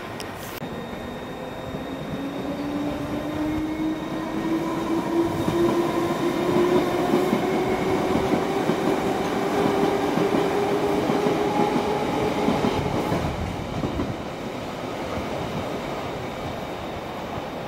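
London Underground train accelerating, its traction motors whining in a pitch that climbs steadily over about twelve seconds above the rumble of the wheels on the rails. The sound is loudest in the middle and fades after the whine stops rising.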